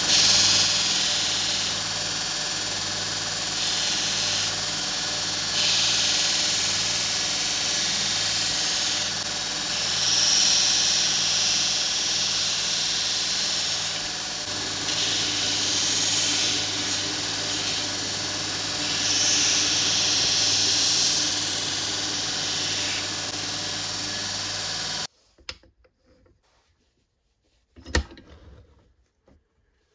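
Belt grinder running with its electric motor humming as a pinned knife handle block is ground against the sanding belt, the hissing grind swelling and easing as the piece is pressed on and shifted. It stops abruptly near the end, followed by a single knock.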